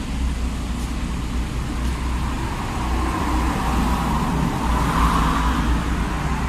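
Road traffic noise with a vehicle passing, swelling from about three seconds in to a peak near five seconds and then fading, over a steady low rumble.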